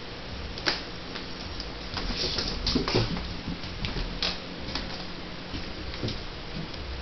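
Irregular light ticks and knocks of a kitten scampering and playing on a tiled floor, busiest a couple of seconds in.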